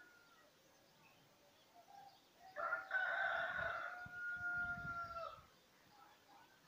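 A rooster crowing once. It is one long call starting about two and a half seconds in and lasting about three seconds, its pitch dropping at the end.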